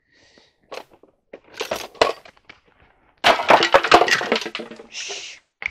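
Several small hard objects falling and clattering onto a hard floor: a few knocks, then a dense rattling clatter about three seconds in that lasts over a second and is the loudest part.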